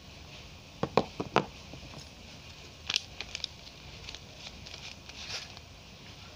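A few sharp clacks of hard soap bars knocking together about a second in, then light crinkling and crackling as a Cinthol soap bar's wrapper is handled and pulled open.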